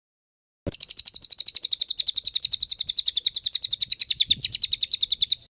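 Songbird giving a fast rapid-fire trill ('tembakan'), about ten high, even chirps a second, of the kind used as a master song to train caged songbirds. It starts abruptly under a second in and stops abruptly near the end.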